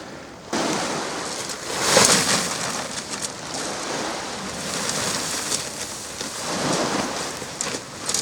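Storm noise of rain and gusting wind, with an abrupt start about half a second in and louder surges about two seconds in and again near the end, plus scattered sharp ticks.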